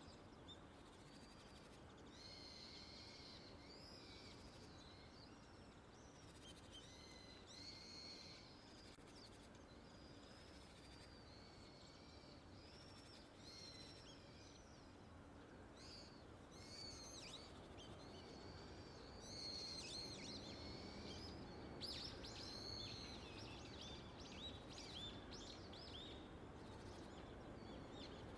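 Faint small birds calling in the background: repeated high chirps and short whistled notes, busier in the last third, over a low hum of outdoor noise.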